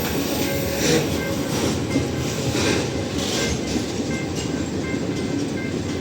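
Freight train wagons rolling past, a steady rumble with the wheels clattering over rail joints at a regular beat.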